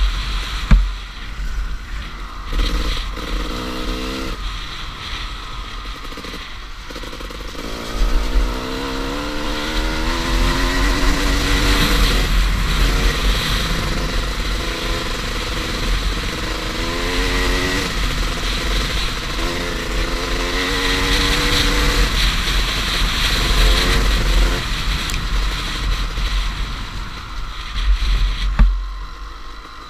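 Two-stroke enduro motorcycle at full throttle, the engine pitch climbing through each gear and dropping back at every shift, with heavy wind buffeting on the helmet microphone. A couple of sharp knocks from the bike hitting bumps, one just after the start and one near the end.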